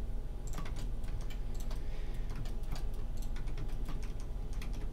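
Computer keyboard keys and mouse buttons clicking in irregular, quick taps, over a steady low hum.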